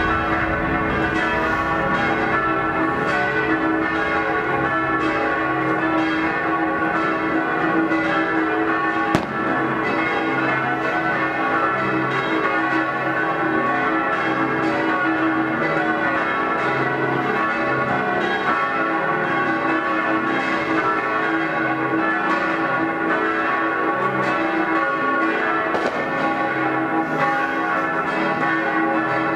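Church bells pealing, several bells ringing over one another without a break to ring in the new year. A single sharp firework bang cuts through about nine seconds in.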